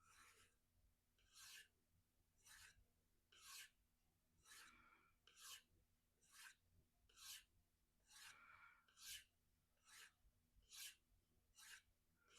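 A VG-10 Spyderco Endura 4 blade stroked along a strop loaded with 3 micron diamond emulsion, a faint scrape about once a second. The stropping refines a toothy edge that had more bite than wanted, trading some aggression for keenness.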